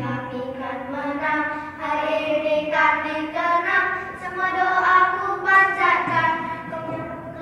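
A small group of children singing a song together in held, changing notes, with no drum or percussion strokes heard.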